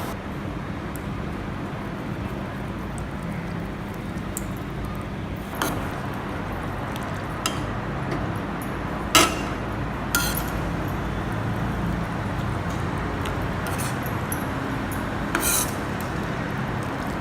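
A few sharp metal clinks of a utensil against a kadhai over a steady low background noise, about five in all, the loudest about nine seconds in.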